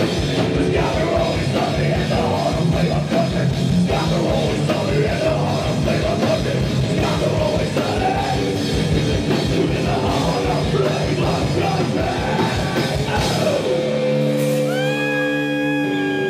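Live heavy rock band playing loud: distorted electric guitars, bass and drum kit, with vocalists singing and yelling into microphones. About 14 seconds in the drums stop and the band lets a final chord ring out.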